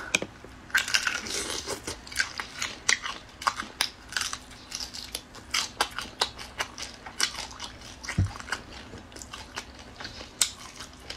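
Biting and chewing a whole cooked shrimp with its shell on, the shell crunching in an irregular run of sharp crackles.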